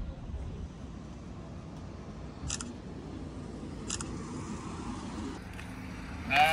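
Two camera shutter clicks about a second and a half apart, over a low steady background rumble. Near the end a sheep starts bleating loudly.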